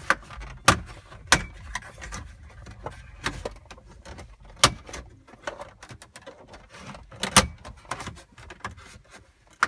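A plastic wedge tool prying at the plastic trim bezel around a GMC Yukon's factory radio, giving a string of sharp plastic clicks and snaps, about six louder ones a second or more apart with smaller ticks between, as the bezel strains against its spring clips.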